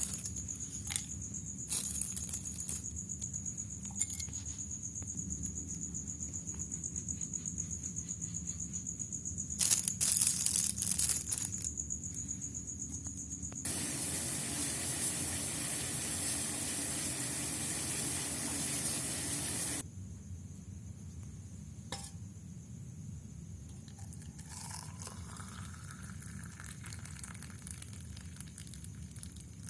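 Hot water poured into a glass over spices: a steady rushing hiss lasting about six seconds that stops abruptly. Before it come a few knocks and a brief clatter.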